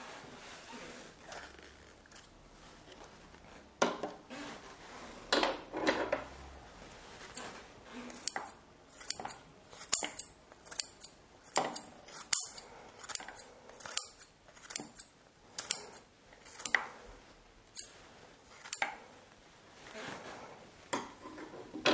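Scissors snipping a red cabbage leaf into small pieces over a plastic bowl. The sharp cuts come about two a second from about eight seconds in, after some handling noise.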